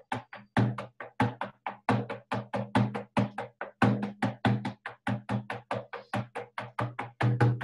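Hand-held hide frame drum beaten with a padded beater in a steady, rapid beat of about five strokes a second, each stroke ringing with a low boom: shamanic journey drumming.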